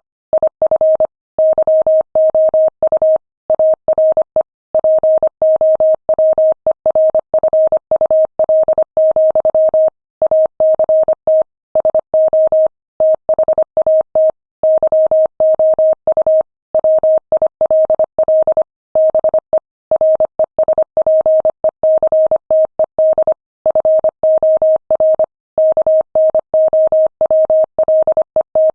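Morse code sent at 25 words per minute: a single mid-pitched tone keyed on and off in rapid short and long beeps, with longer pauses between words.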